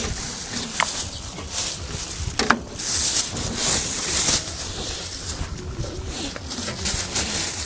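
Steady background noise of a busy outdoor street-market stall, with hissy rustling and two brief high squeaks, about a second in and at two and a half seconds.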